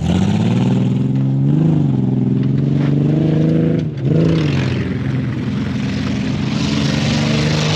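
Off-road truck engine running hard at high revs, blipping up twice and briefly lifting off the throttle about four seconds in.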